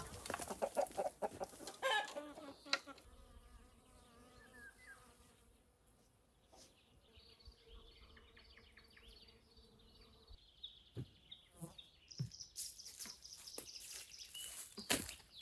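Chickens clucking, then an insect buzzing steadily with small birds singing high over it; near the end, a few footsteps on a dry path.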